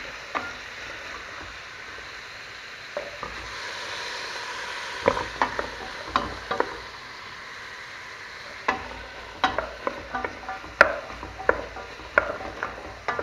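Diced carrots and onion sweating in oil in a stainless steel pot, sizzling steadily, while a wooden spoon stirs them, clicking and knocking against the pot in irregular strokes that come more often in the second half.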